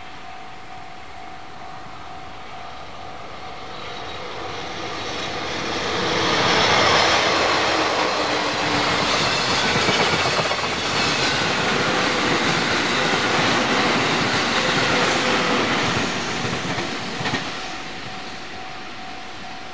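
A train passing close by a level crossing, its wheels clattering over the rails. The sound swells over about two seconds, stays loud for about ten seconds, then fades. The crossing's warning bell rings as a steady high tone, heard before the train covers it and again once it has gone.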